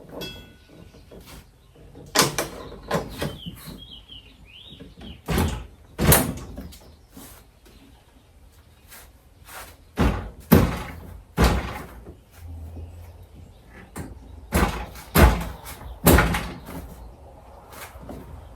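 Irregular knocks and clunks of prop parts being handled and fitted together, with a few short high chirps about three to four seconds in.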